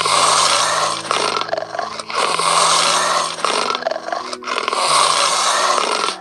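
A serval growling in three long noisy breaths, each about a second and a half, with short pauses between them.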